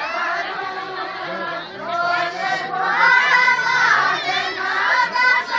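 A Kumaoni jhoda–chanchari folk song sung together by a group of women's voices, swelling and falling away phrase by phrase.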